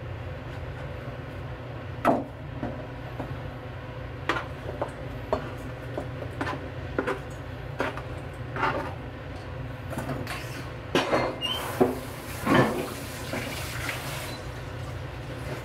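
Oil heating in a deep iron frying pan on a gas burner: scattered small pops and crackles, thickest about ten to thirteen seconds in, over a steady low hum.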